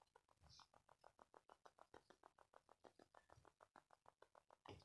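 Near silence: room tone with a faint, rapid, regular ticking, about seven ticks a second, and a soft low thump near the end.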